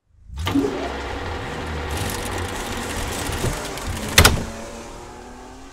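Logo intro sound effect: a mechanical, car-like rush starting about half a second in, then one loud hit a little after four seconds that rings on with a low tone and fades away.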